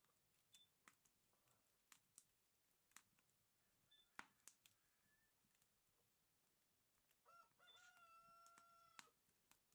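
A rooster crows once about seven seconds in, a short stepped start followed by one long held note of nearly two seconds. Before it, faint scattered crackles from the wood fire burning in the hearth.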